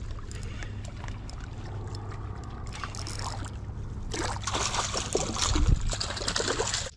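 Water splashing and sloshing over a steady low hum, becoming louder and busier about four seconds in, then cutting off abruptly.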